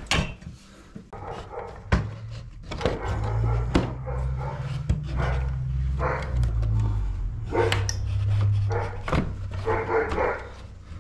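A dog barking a few times in the second half, over scattered clicks and knocks of chainsaw parts being handled. A low steady hum runs through the middle.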